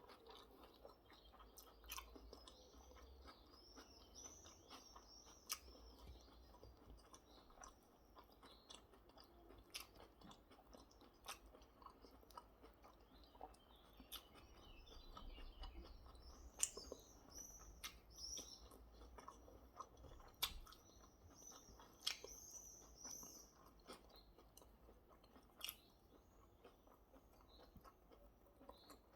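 A person chewing food quietly, with scattered sharp mouth clicks and crunches. Faint bird chirps sound in the background.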